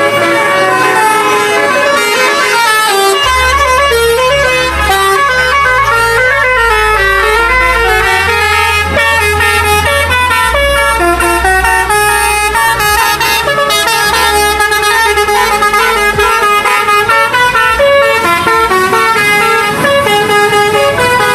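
Indonesian 'telolet' multi-trumpet bus horn playing a fast melody, its notes changing several times a second. Deep low tones step through a few pitches underneath for much of the middle.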